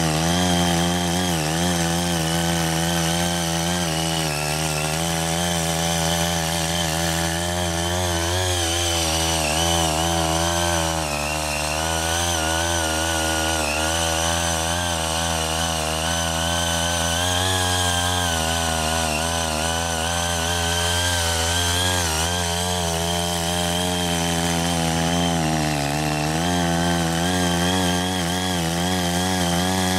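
Small engine of a CY80 mini rotary tiller running steadily under load as its tines churn soil, its pitch wavering slightly as the load shifts.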